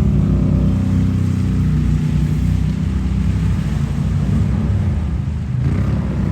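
Can-Am Outlander ATV engine running, a steady low drone with the revs wavering slightly and a brief dip about five and a half seconds in.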